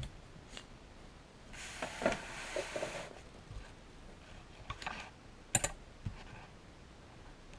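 Small screws and metal parts of a disassembled airsoft shotgun clicking and tapping as they are handled and laid out on a hard surface. There is a stretch of rustling about two seconds in and a sharp click about five and a half seconds in.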